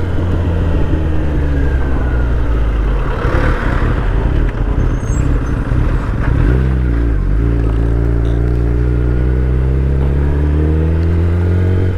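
Motorcycle engine running at riding speed, with wind noise. The engine note drops briefly about six and a half seconds in, then climbs gradually.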